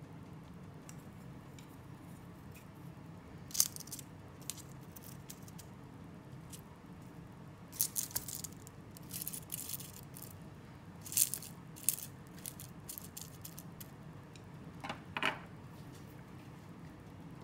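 Chopsticks clicking and scraping as they pick up and set down grilled leafy greens, in short scattered taps and a few quick clusters, over a low steady room hum.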